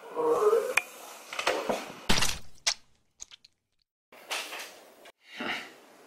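A staged sword killing: a short cry, a few knocks, then one loud heavy thud with a clatter about two seconds in as a man stabbed with a katana slumps onto a table among cups. After a moment of silence come two short rushing noises near the end.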